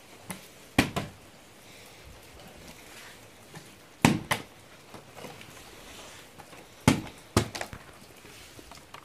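A plastic water bottle tossed and landing on the floor three times, each landing a thud followed quickly by a second knock as it bounces or topples over.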